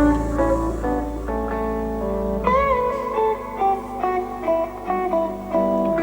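Bluesy guitar music played through a Trust Vigor 2.1 speaker set with subwoofer: a run of plucked notes, with one bent note about halfway through.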